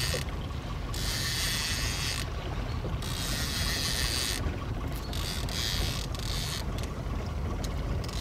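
Fishing reel running in spells of about a second while a hooked fish is played on a bent rod, over a steady low hum of the boat's motor.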